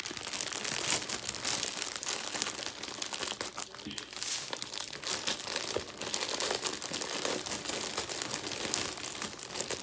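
Black plastic poly mailer bag crinkling and crackling as hands pull it open.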